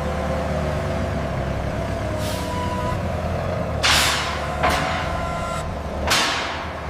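Heavy truck engine idling with a steady low rumble, broken by sharp hisses of released air, loudest about four and six seconds in.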